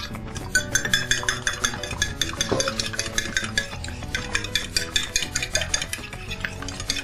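A fork beating a raw egg in a ceramic soup plate: quick, regular clicks of the fork against the plate, starting about half a second in.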